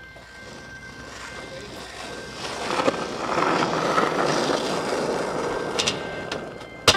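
Skateboard wheels rolling over pavement, a rough rumble that grows louder about two and a half seconds in, ending in a sharp click.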